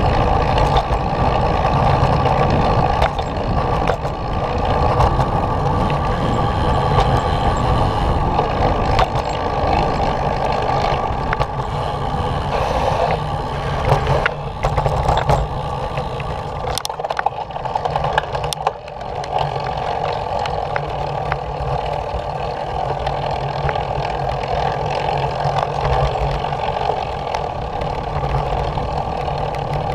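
Steady rolling noise and rumble of wheels travelling over a concrete path, with scattered sharp clicks, briefly quieter a little past the middle.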